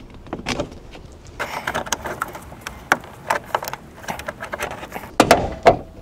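Plastic clicks, rattles and knocks as a plastic trim tool pries the interior trim panel of a Toyota Sienna sliding door away from its retaining clips, with the loudest knocks about five seconds in.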